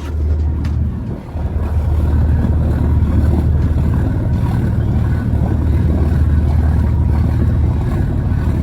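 Twin mechanical diesel inboard engines idling in a steady low rumble while they warm up, dipping briefly about a second in.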